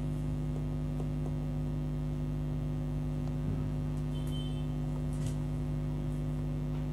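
Steady low electrical hum, with a few faint light clicks over it.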